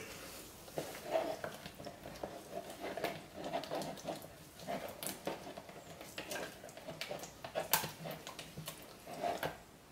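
Faint handling noise of plastic containers and a measuring jug, with scattered small clicks and knocks, a sharper tick about five seconds in and another near eight seconds.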